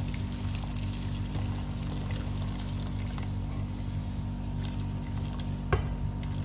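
Fish broth being poured from a pot onto uncooked rice in a cooking pot, splashing and trickling, over a steady low hum. A single sharp knock sounds about three-quarters of the way through.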